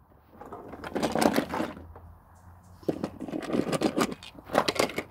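Wooden toy trains scraping and clicking on a wooden track as they are handled and pushed along, in three short bouts.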